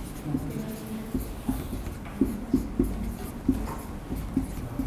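Marker writing on a whiteboard, a run of short, irregular strokes and taps as letters are drawn.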